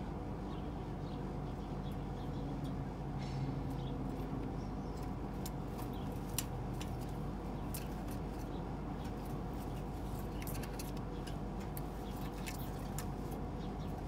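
Light clicks and scratches of a pigeon shifting about, growing busier after about five seconds with one sharper tick, over a steady background hum.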